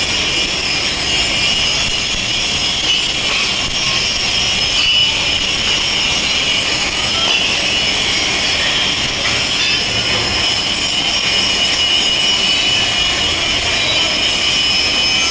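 Robotic arc welding: a steady, loud, high hiss that holds without a break.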